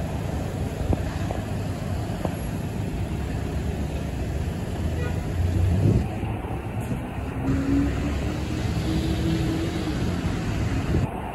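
Street traffic: engines of passing trucks and cars with tyre noise, a steady low rumble. A short faint whine rises past the middle.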